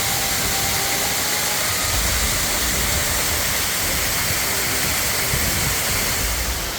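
Waterfall's steady rush of falling water, an even hiss spread from deep rumble to high.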